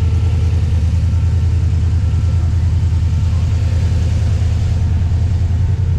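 Modified classic Ford Falcon's engine idling with a loud, steady, pulsing rumble.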